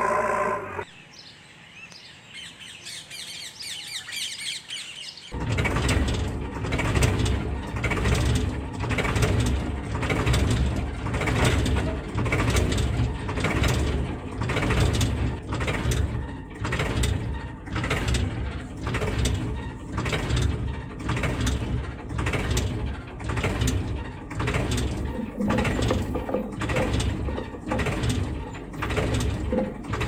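An engine sound cuts off about a second in, leaving birds chirping for a few seconds. About five seconds in, a loud rhythmic mechanical chugging starts, a regular beat with a deep rumble, and runs on steadily.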